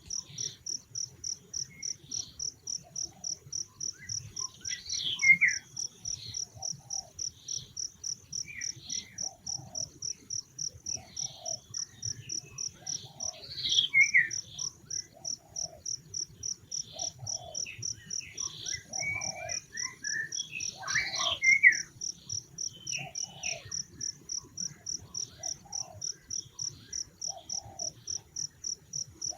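Forest insect, cricket- or cicada-like, chirping in a steady high pulse of about three beats a second, with short squeaky calls breaking in now and then; the loudest come about five, fourteen and twenty-one seconds in.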